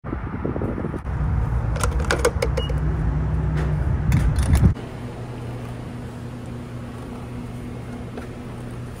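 Refuelling at a gas pump: a steady low hum of fuel flowing through the nozzle in the van's filler neck, with metallic clicks and clinks of the nozzle. About four and a half seconds in it cuts off abruptly to a quieter steady appliance hum.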